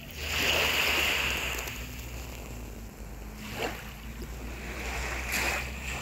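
Small waves washing up a sandy beach from a calm sea: one long wash that swells and fades over the first two seconds, then two shorter washes, the second near the end.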